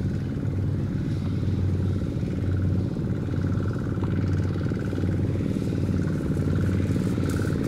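Two-wheel walking tractor's single-cylinder diesel engine running steadily as it pulls a loaded trailer.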